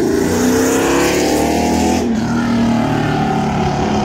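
A Chevrolet C8 Corvette's V8 engine being revved hard, the pitch climbing and falling again and again without dropping back to a quiet idle.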